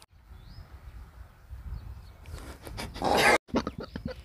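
A man imitating a fart with his mouth: a low growling rasp that builds to a loud spluttering burst about three seconds in and breaks off suddenly.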